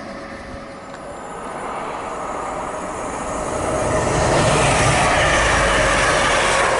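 Passenger train approaching and passing close by at speed: a rushing roar of wheels on rail that builds steadily and is loudest over the last couple of seconds.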